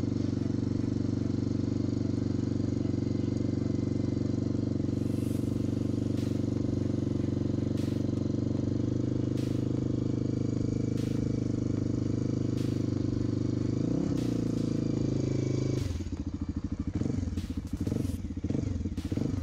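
Suzuki DR350's single-cylinder four-stroke engine with a SuperTrapp exhaust, idling steadily while warming up after a cold start. About two-thirds of the way in there is a short throttle blip, and after it the engine note turns uneven and pulsing.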